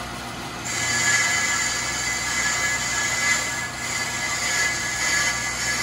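Accuturn 8922 brake lathe running with its cutting bits against a spinning brake rotor: a steady motor hum, and under a second in a high-pitched metallic squeal that holds as the bits bear on the rotor face.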